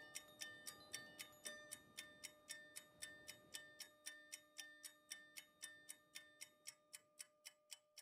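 Faint clock-like ticking, about four ticks a second and quickening slightly, over a few held tones, fading out and stopping at the end.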